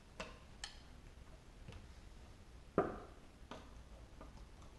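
Faint, scattered clicks and taps of small parts being handled in an open M4 V2 airsoft gearbox shell, about six in all, with one louder knock about three seconds in.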